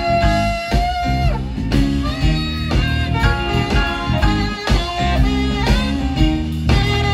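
Live band music: a saxophone playing a bluesy melody over electric guitar with a steady beat.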